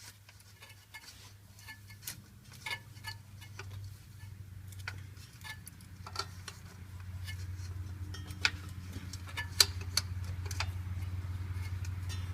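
Irregular clicks and light metallic taps from hands working a new oil filter on as it is tightened, over a steady low hum that grows louder about seven seconds in.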